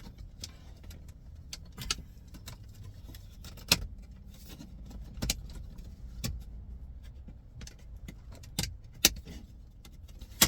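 Plastic dashboard trim being pried loose with a plastic trim tool: a series of irregular sharp clicks and snaps of trim clips and plastic, the loudest about four seconds in and near the end.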